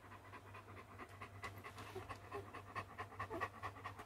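A Great Dane mother dog panting quickly and steadily while nursing her newborn puppies.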